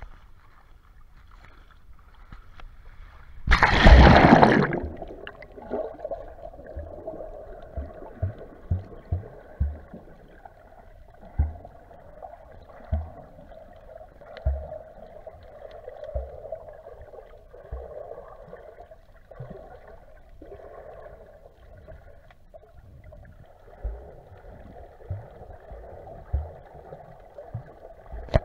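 A splash about four seconds in as the camera plunges below the sea surface. Then the muffled gurgling hum of sea water heard from underwater, with scattered dull low thumps.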